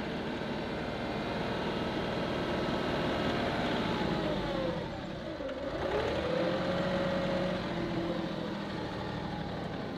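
John Deere 2038R compact tractor's three-cylinder diesel engine running in high gear, heard from inside the cab. About halfway through the engine speed drops and then climbs back up.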